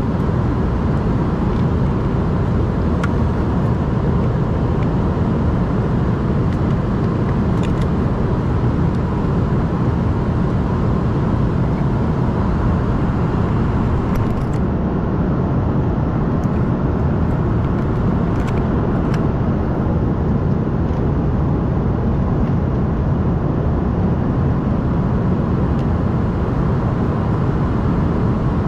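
Steady engine and airflow noise inside the main cabin of an Embraer ERJ-145 regional jet, with its two rear-mounted Rolls-Royce AE 3007 turbofans running, heard from a forward window seat. A faint steady tone sits over the even noise.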